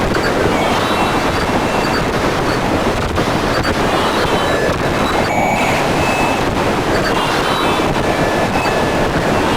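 Harsh noise music: a dense, loud wall of distorted noise with short high tones flickering through it and a brief dropout in the highs about five seconds in.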